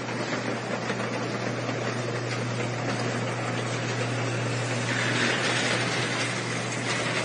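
Electric garage door opener running: a steady motor hum under a continuous mechanical rumble as the door travels open.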